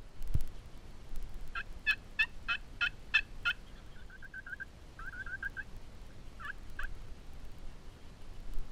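Turkey yelping: a run of about seven evenly spaced yelps, about three a second, then two quick runs of faster, clipped notes and two last yelps. A low thump comes just at the start.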